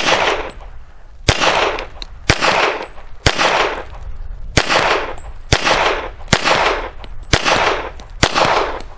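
Hi-Point .45 ACP pistol firing nine rounds of 230-grain full metal jacket at a steady pace of about one shot a second, emptying its nine-round magazine. Each shot is followed by a long echo.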